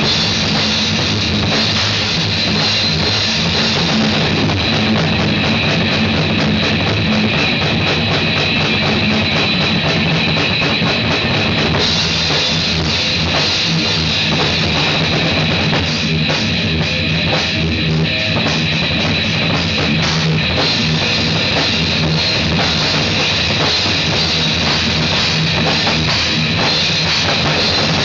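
Loud rock music on a drum kit and guitar, with a dense, steady stream of drum hits.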